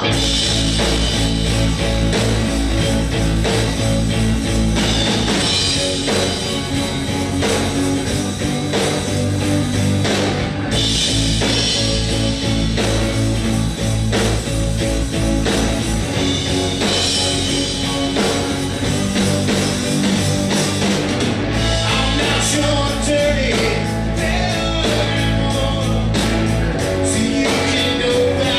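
Live rock band playing on electric guitars and drum kit, loud and steady, with sharper, more frequent hits in the last several seconds.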